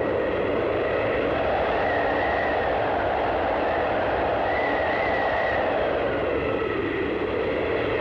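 Strong wind blowing steadily, its sound swelling and easing, with a thin whistle coming and going twice.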